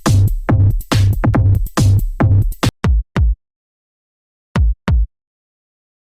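Electronic dance music with a fast drum-machine beat that breaks off about two and a half seconds in. A few isolated heavy bass hits follow, with dead silence between them.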